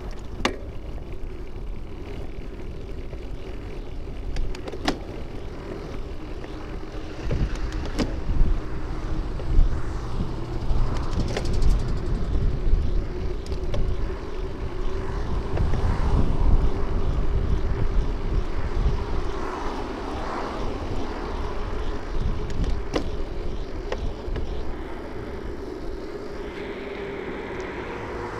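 Ride noise picked up by a camera mounted on a bicycle: a steady hum with wind and road rumble, and passing traffic swelling through the middle. A few sharp knocks are scattered through it.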